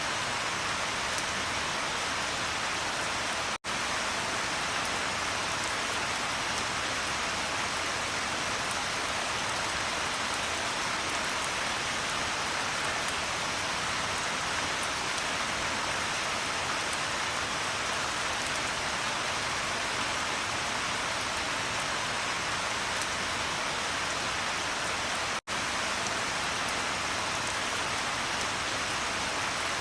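Steady rain, an even hiss. It cuts out for an instant twice, about three and a half seconds in and a few seconds before the end.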